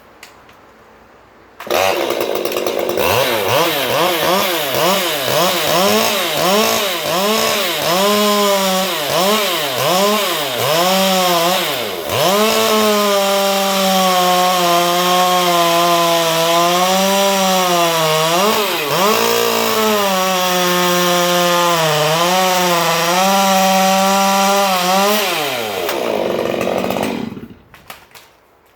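Ported Stihl MS 201T two-stroke top-handle chainsaw, coming in abruptly about two seconds in and revving up and down roughly once a second for about ten seconds. It then runs at high speed through a long cut in dried Douglas fir, its pitch dipping and recovering a few times, before winding down and stopping near the end.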